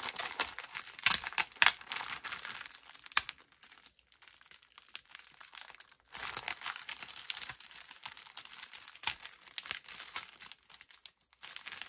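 Clear plastic bag of embroidery floss skeins crinkling as hands handle and work it open, in irregular rustles with a few sharper crackles and brief lulls.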